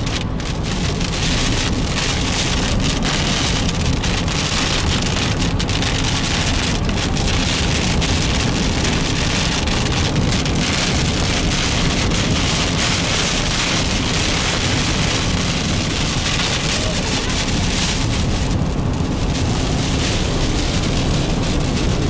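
Heavy rain beating steadily on a car's roof and windshield, heard from inside the cabin, loud and unbroken, with the rush of the car driving through it.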